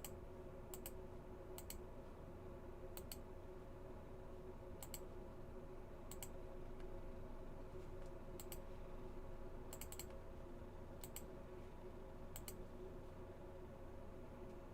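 Computer mouse clicking: about ten sharp clicks at irregular intervals of one to two seconds, most of them quick double clicks, over a steady low electrical hum.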